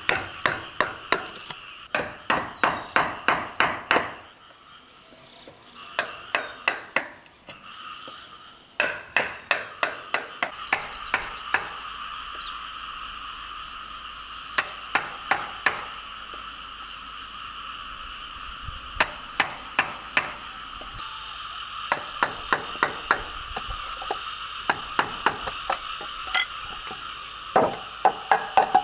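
Wooden mallet striking a steel chisel as it cuts a mortise into a timber beam, in runs of rapid sharp blows with short pauses between them. A steady high chorus of calling animals runs underneath.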